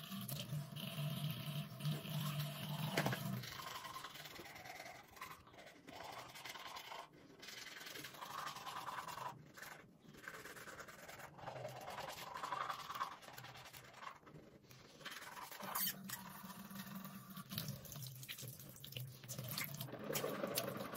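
Teeth being brushed with a manual toothbrush: wet scrubbing strokes. A low hum sounds over the first few seconds and again near the end.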